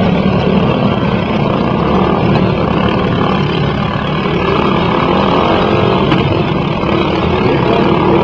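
Riding lawn mower engines running loudly and steadily.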